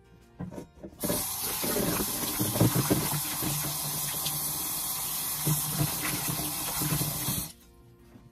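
Kitchen tap running into a stainless steel bowl of asparagus in a sink, filling it with water and splashing as a hand swishes the spears. The tap comes on about a second in and shuts off abruptly near the end.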